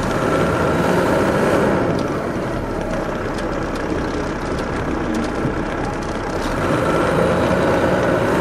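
Detroit Diesel Series 60 diesel engine of an MCI D4500 coach running steadily. A thin high whine fades out about two seconds in and returns near the end as the engine note swells a little.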